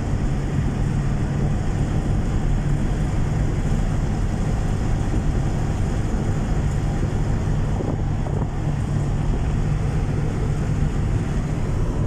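Steady engine hum and road noise of a car driving at an even speed, heard from inside the cabin.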